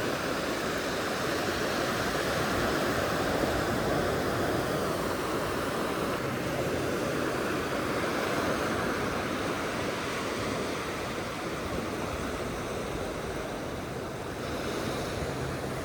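Ocean surf washing onto the beach, a steady rush of breaking waves on a calm day.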